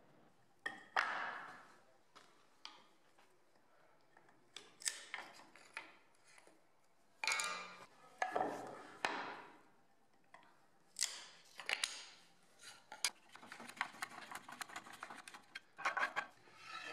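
Steel wood chisel paring and scraping the stepped end of a hardwood board, in a series of irregular scraping strokes and clicks, with a quicker run of short scrapes near the end.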